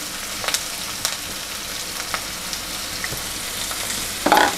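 Freshly added chopped onions and a green chilli sizzling in hot oil in a nonstick pan: a steady frying hiss with a few scattered pops and crackles, and a short louder sound near the end.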